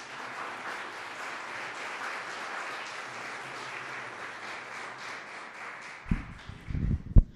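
Audience applauding, fading out about six seconds in. Near the end come several loud, low thumps of the podium microphone being handled.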